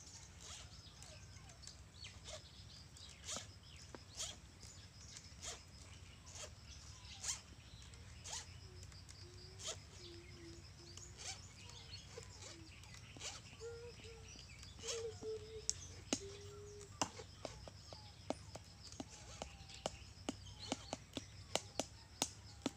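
Sharp clicks and taps of hands working on a chainsaw's bar and chain during a manual cleaning, scattered at first and coming faster, about two or three a second, in the last several seconds.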